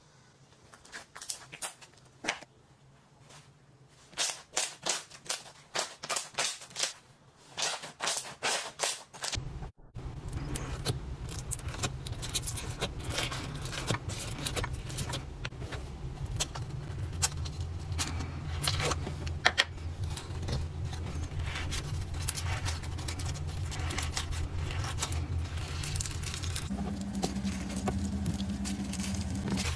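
Slime being squeezed and pressed by hand: for about the first ten seconds, wet clicks and pops come in small clusters. Then a crunchy slime full of green beads is kneaded and stretched, giving a dense, continuous crackling over a low steady hum.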